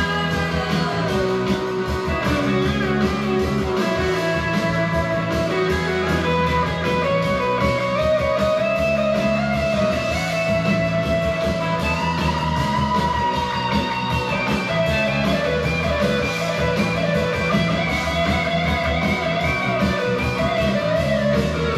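Background music: a guitar-led instrumental passage with a steady beat.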